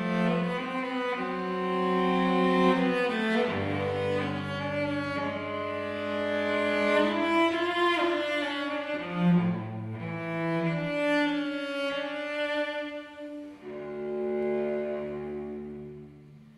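Cello playing a slow melody of long bowed notes, dropping to a low held note for several seconds, and fading as the phrase ends.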